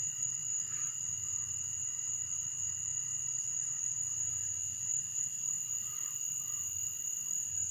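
Insects in a summer yard trilling steadily: a continuous high-pitched drone that does not stop or change, with a faint low hum beneath.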